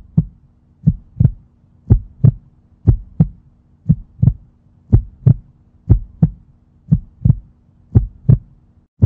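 Heartbeat sound effect: paired lub-dub thumps, one pair about every second, over a faint steady low hum.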